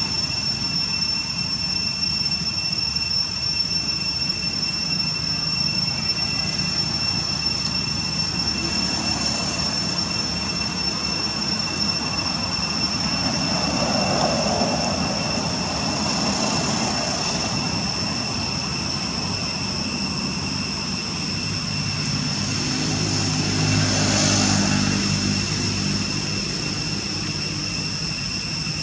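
Steady outdoor background noise with a constant high-pitched whine. A low engine-like hum swells up about 23 seconds in and fades again.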